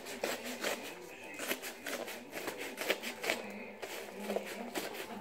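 Scissors cutting open a padded paper mailer envelope: a run of irregular snips and crinkling of the paper.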